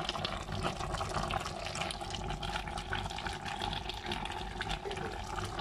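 Thick coconut-milk crab sauce, thickened with cornstarch, bubbling steadily at a simmer in the pan, with a dense run of small pops and crackles.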